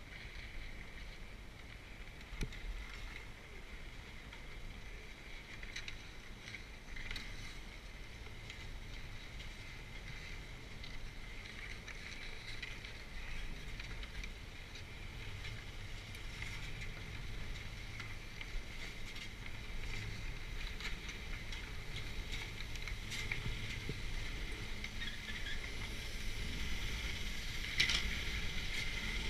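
Detachable six-pack chairlift machinery running with a steady hum and low rumble, broken by a few light clacks. It grows louder toward the end as the chair moves into the loading terminal, with a sharp clack near the end.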